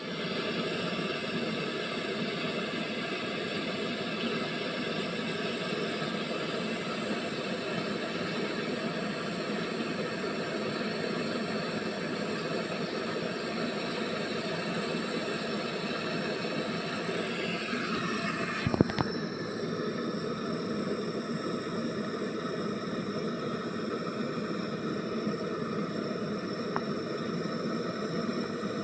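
Brazing torch flame hissing steadily while a copper refrigeration line is joined. About 19 seconds in there are a couple of sharp clicks, and the hiss turns duller after them.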